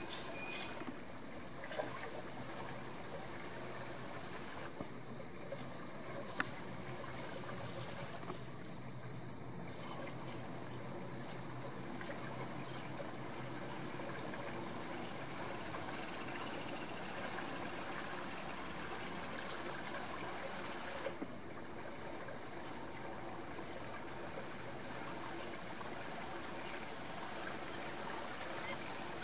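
Steady rush of flowing river water, with a sharp click about six seconds in.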